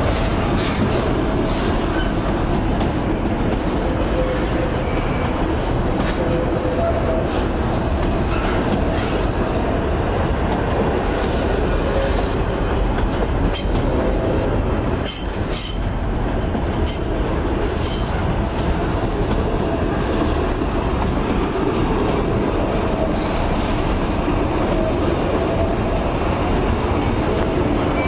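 Freight train of hopper wagons rolling past close by: a steady rumble of steel wheels on rail, with occasional clacks as the wheels cross the rail joints.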